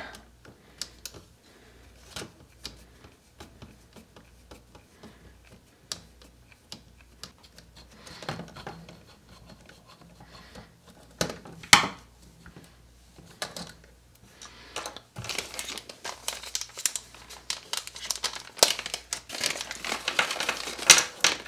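Small clicks and taps of a screwdriver and plastic parts as a stock shock is unscrewed from a toy-scale RC crawler's front suspension, with one sharper click about halfway. In the last several seconds, a dense crinkling of plastic packaging.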